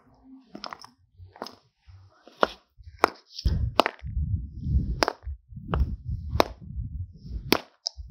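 Claw hammer striking a nail-punctured lithium-ion cylindrical cell on concrete: about eight sharp blows, roughly one a second. A low rumble runs under the blows from about halfway through.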